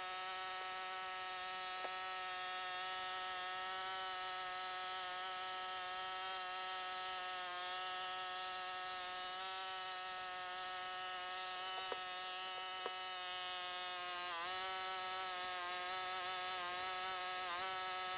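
Honda GCP160 lawnmower engine running with ketchup in its crankcase: a steady high-pitched buzz that dips in pitch twice near the end as the engine starts to die.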